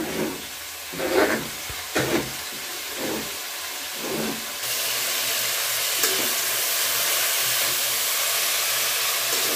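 Chopped greens and fried potato going into hot oil in a steel kadai: a few short scraping sounds as they are pushed off a plastic tray, then from about halfway a steady loud sizzle as the greens are stirred with a spatula.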